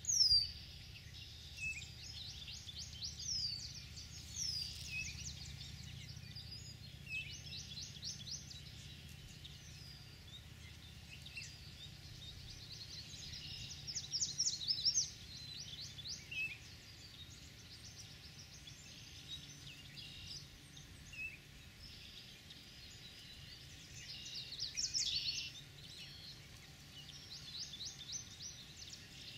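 Several songbirds singing and calling: sharp downslurred whistled notes and rapid trills, loudest in bursts at the start, around the middle and a little before the end. A steady low rumble sits underneath.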